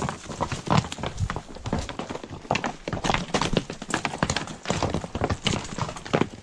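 Hooves of a ridden horse walking over loose rock, giving irregular clops and knocks on stone.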